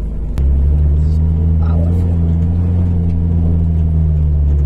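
Toyota Lite Ace van's engine running steadily under load, a low drone that abruptly gets louder about half a second in and then holds.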